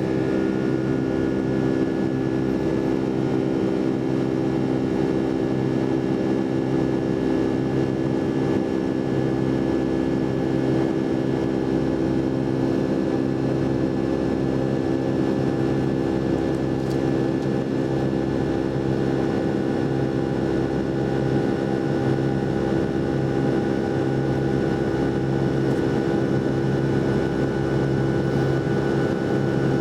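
Steady cabin drone of a Boeing 757-200's jet engines, heard inside the passenger cabin: a constant roar with a steady low hum and no change in pitch or level.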